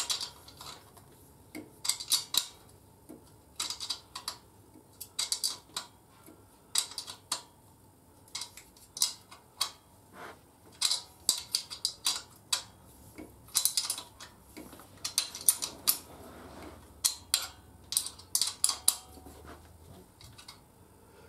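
Hand tools working on metal engine fittings: short clusters of sharp metallic clicks and clinks, with brief pauses between them.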